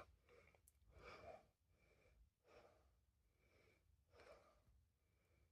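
Near silence, with three faint breaths about a second and a half apart.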